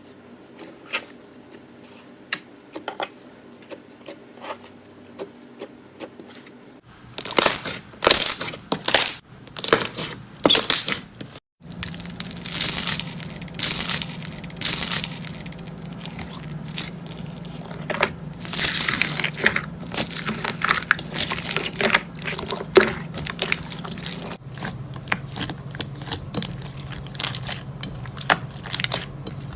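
Slime being squeezed and pressed by hand, making irregular crackling and popping clicks, sparse and quiet at first, then denser and louder from about seven seconds in.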